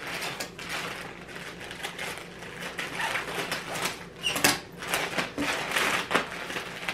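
Plastic mailer bag rustling and crinkling as it is handled and cut open with scissors, with irregular sharp clicks and snips, one louder about four and a half seconds in.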